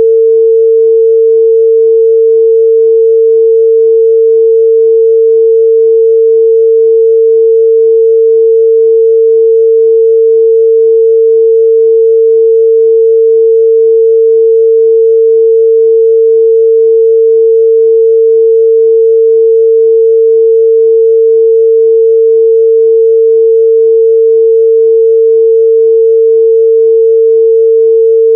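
A steady, loud 451 Hz sine-wave test tone, a single unchanging pitch with no other sound.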